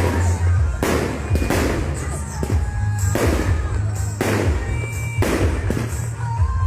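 Fireworks display: about six loud bangs, roughly a second apart, each trailing off in a crackle, over music with a heavy bass.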